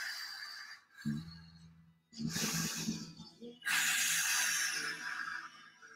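A man breathing forcefully while holding a strength position: three long, noisy breaths, the last the longest. Faint background music runs underneath from about a second in.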